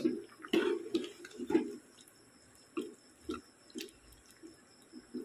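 Spiced chicken korma gravy cooking in a pan, giving irregular wet plops and small clicks, busiest in the first two seconds, then scattered.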